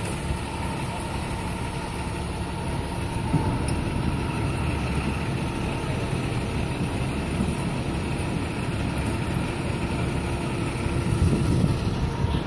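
A motor vehicle's engine running steadily, a little louder from about three seconds in.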